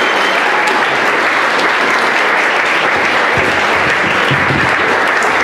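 Crowd clapping, a steady, dense applause that keeps going without a break.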